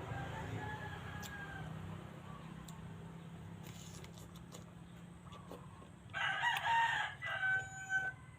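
A rooster crowing once, loud and about two seconds long, starting about six seconds in and ending on a held note, over a steady low hum.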